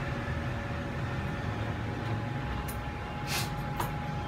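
Steady low machine hum carrying two faint steady tones, with a few light clicks in the last second and a half.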